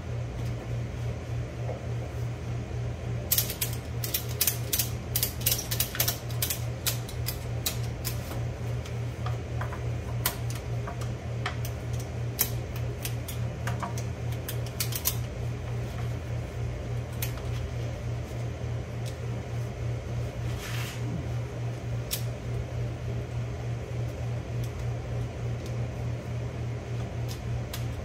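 Steady hum of a fan throughout, with bursts of rapid, irregular ratchet clicking between about 3 and 15 seconds in, and a brief scrape a little after 20 seconds.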